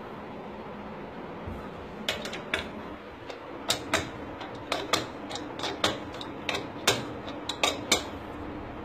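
Sharp metallic clicks and clinks, a dozen or so at an irregular pace starting about two seconds in, as chrome plumbing fittings on a wall-mounted mixer-tap inlet are handled and fitted.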